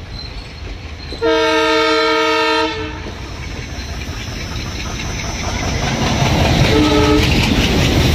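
Diesel locomotive air horn: one long blast about a second in, lasting about a second and a half, then a short blast near the end. Over it, the rumble and rail clatter of an oncoming diesel locomotive grows louder as it passes alongside the moving train.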